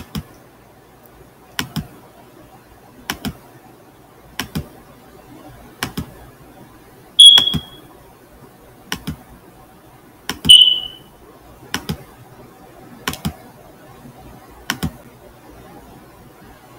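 Computer mouse clicking, a quick double click about every second and a half as photos are paged through. Midway through come two short, loud high-pitched beeps about three seconds apart.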